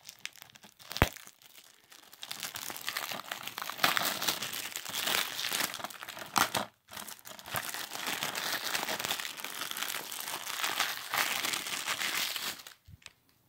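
Cellophane shrink-wrap being torn and peeled off a DVD case: a dense, ongoing crinkling with a short break midway, which stops near the end.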